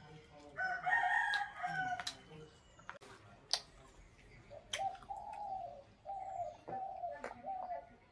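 A rooster crowing twice in the background, first about half a second in and again from about five seconds in, the second crow breaking into several drawn-out notes. A few sharp clicks sound between the crows.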